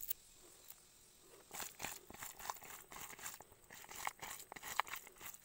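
Hands mixing raw chicken pieces with sliced onion, chopped coriander and spice paste in a plastic bowl: a quick, irregular run of small rustling and squelching sounds, starting about a second and a half in.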